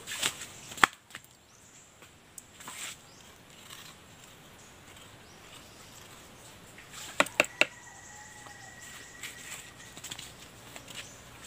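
Metal spoon scooping the soft meat out of halved young coconuts and knocking against the shell: a few scattered sharp clicks, with three quick loud ones close together about seven seconds in.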